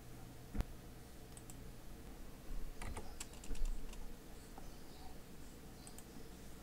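Faint computer keyboard typing and mouse clicks: a single click about half a second in, a quick run of keystrokes around three seconds in, and a few light clicks near the end.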